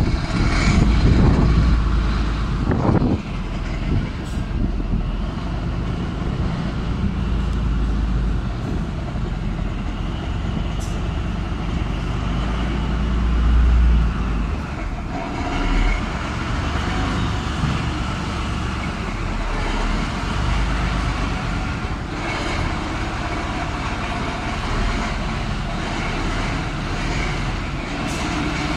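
Tank's engine running: a steady low rumble with mechanical noise, heard from on top of the hull.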